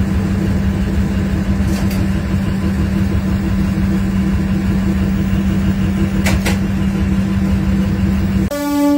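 Train locomotive running with a steady deep drone from inside the cab. Near the end the locomotive horn sounds in one sustained blast.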